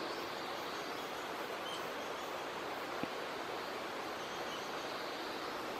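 Steady forest ambience: an even hiss with no distinct calls, and a faint tick about three seconds in.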